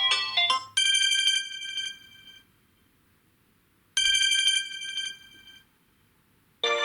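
Samsung Galaxy Note10 Lite stock ringtones. A quick run of melodic notes ends about a second in. A single bright bell-like chime then rings out and fades, and is struck again about three seconds later. A fuller, busier ringtone melody starts near the end.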